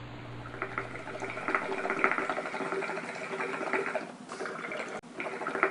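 Water bubbling and gurgling in an irregular, crackly stream of small pops, with a brief sharp break about five seconds in.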